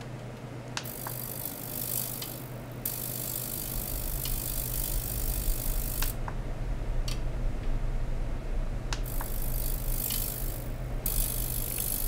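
A high hiss from ultrasonic probes being driven in a water tank. It switches on about a second in, cuts out around six seconds and comes back around nine seconds, with a sharp click at each switch. A steady low hum runs underneath.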